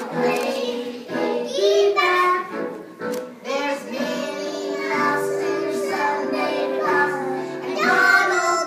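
A song with young children's voices singing over backing music, with one long held note through the middle.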